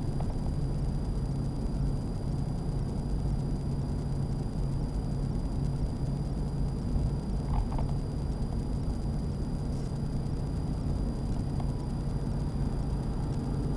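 Steady engine and road drone inside the cab of a Ford F-350 diesel pickup cruising on the highway, with a constant low hum.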